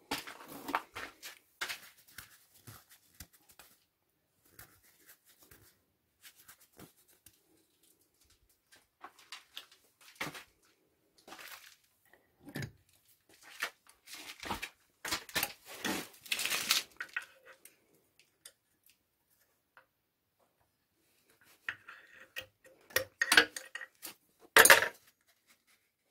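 Intermittent metallic clinks, knocks and scrapes of hand tools and engine parts being handled, with stretches of quiet between and a cluster of louder clatter near the end.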